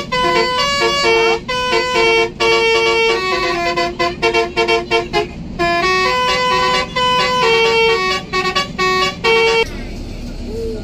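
Basuri telolet multi-tone bus horn playing a fast tune of short notes that step up and down in pitch. It cuts off near the end, leaving a steady hiss.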